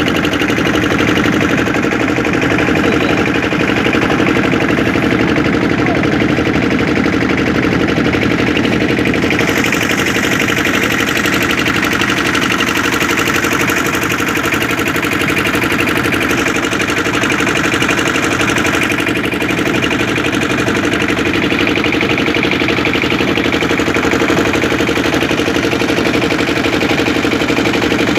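Boat engine running steadily at a constant speed, a dense, even mechanical drone.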